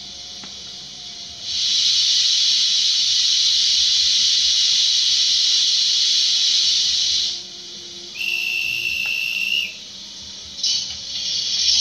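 Steam-locomotive sounds from the DCC sound decoder of a model Oi1 steam locomotive: a long, loud steam hiss of about six seconds, then a steady whistle of about a second and a half. Near the end come short, sharp hissing puffs.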